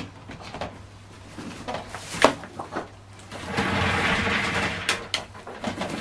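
A plug clicking into a power strip, followed by knocks and handling sounds, then a loud hissing rustle lasting about a second and a half.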